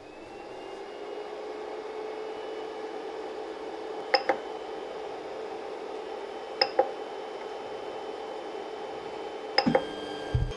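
Creality CR-10 S5 3D printer's cooling fans spinning up after power-on and then running with a steady hum. Three short clicks come a few seconds apart as the control knob is pressed.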